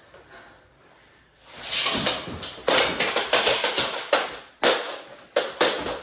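Mini hockey sticks clacking and scraping on the floor as two players scuffle on their knees for the ball. Near silence for about the first second and a half, then a quick, uneven run of scrapes and clacks.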